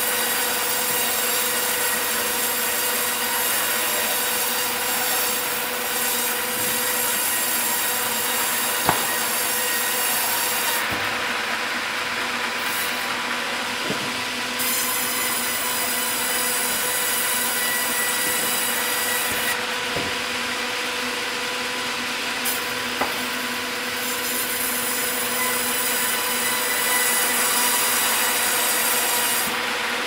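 Sawmill running: a saw cutting wood, a constant rasping noise over a steady machine hum. A few sharp knocks break through it.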